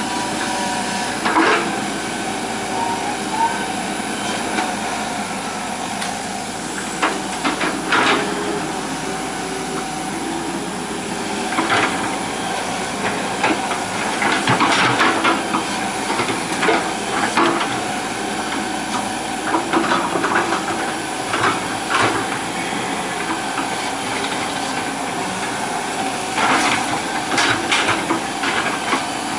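Hitachi EX120 hydraulic excavator's diesel engine running steadily under working load with a constant hiss. Irregular knocks and clanks come every few seconds, in clusters partway through and near the end.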